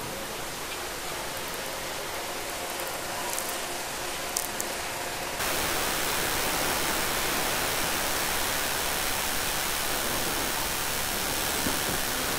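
Steady rushing noise of wind and sea water on the deck of a ship underway. It jumps abruptly louder and brighter about five seconds in.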